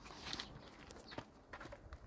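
Faint footsteps scuffing, with a few light clicks scattered through.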